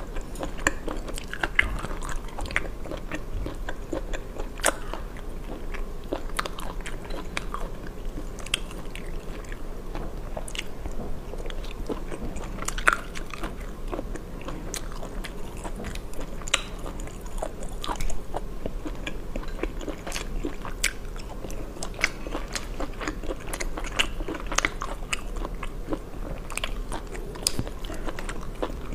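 Close-miked eating of spicy snails: irregular little clicks and cracks of snail shells being handled and picked open with a toothpick, mixed with chewing.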